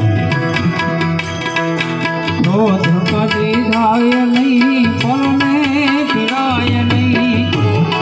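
Instrumental passage of a Gujarati devotional dhun: tabla playing a steady rhythm under held harmonium notes. From about two and a half seconds in until near the end, a wavering melody line rises above them.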